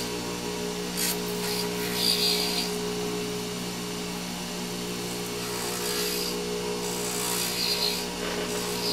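Small lathe motor humming steadily while a hand-held blade scrapes the limbal edge of a digital iris image spinning in the chuck, in several short scraping strokes with a quieter stretch in the middle. The edge is being thinned to a bevel.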